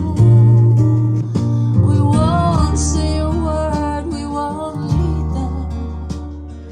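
A song played loud through a pair of small Q Acoustics 7000LRi speakers: deep bass notes under guitar, with a singing voice about two seconds in.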